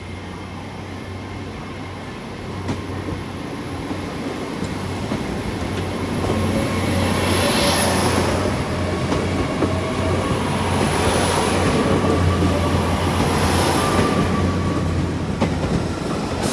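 GWR Class 802 IET train moving through the station, growing louder over the first several seconds and then running steadily, with a steady low hum and a thin high whine.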